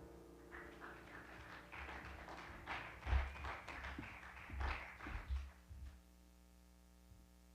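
Faint handling noise on a microphone: a string of soft taps and rustles with a few low thumps, cutting off abruptly about six seconds in, leaving only a low steady hum.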